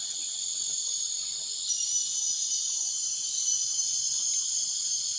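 A steady, high-pitched chorus of forest insects trilling in several layers, with a louder insect joining in about two seconds in.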